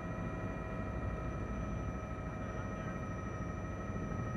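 Helicopter in flight: a steady low rumble with a constant whine running through it.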